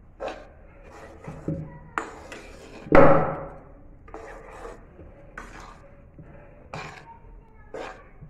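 Metal spoon stirring and scraping dry grated coconut and semolina in a non-stick kadai: irregular scrapes and light clicks against the pan, with one louder, briefly ringing knock about three seconds in.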